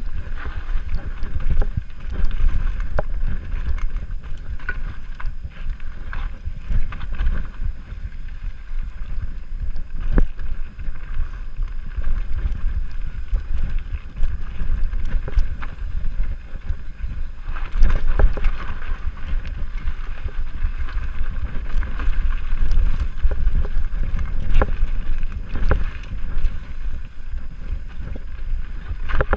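Mountain bike descending a dirt singletrack: tyres rumbling over the trail, wind on the microphone, and the bike rattling with frequent sharp knocks over roots and rocks, with a louder cluster of knocks about two thirds of the way in.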